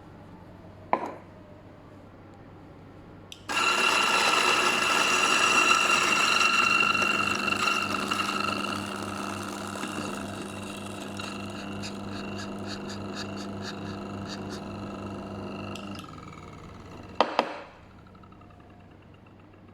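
DF64 grinder's motor and 64 mm flat burrs grinding coffee beans. It starts about three seconds in and is loudest for the first few seconds, then settles to a quieter, steady run as the single dose of beans goes through, and stops near the end. A click comes before the motor starts, and a short double knock follows after it stops.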